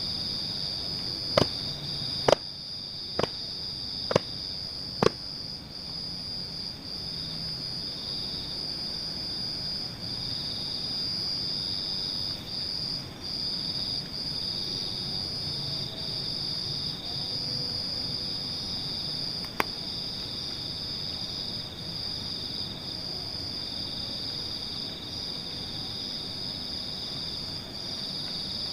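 A steady chorus of crickets chirping at night, with five sharp clicks about a second apart near the start and a single click about two-thirds of the way through.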